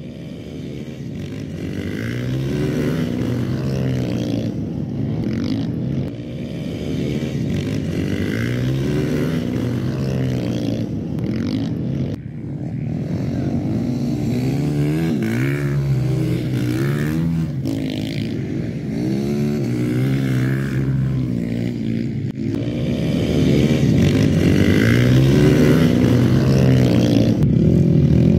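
A pack of flat-track motorcycles racing on a dirt track, several engines at once revving up and down through the corners, getting louder toward the end.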